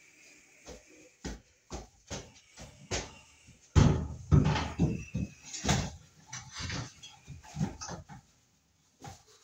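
Irregular knocks, bumps and rattles from handling a flat LED panel light fixture and stepladder, with the heaviest thuds about four and six seconds in.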